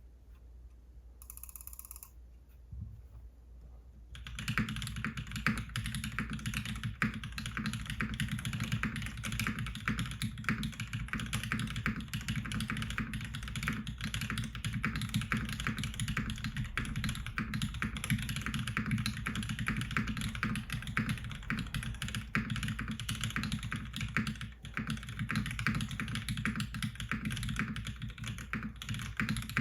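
Typing on a gasket-mounted custom mechanical keyboard with lubed Cherry MX Black linear switches, a copper plate and GMK keycaps. The typing starts about four seconds in and runs on as a dense, continuous clatter of keystrokes; a brief tone sounds before it.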